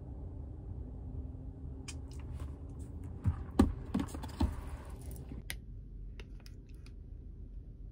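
Paper bakery bag crinkling and rustling as it is handled, with scattered clicks and a few dull knocks in the middle, over a steady low car-cabin hum.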